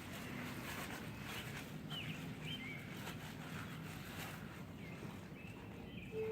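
Birds chirping in short sweeping calls over steady outdoor noise. Right at the end, an outdoor warning siren starts with a strong steady tone.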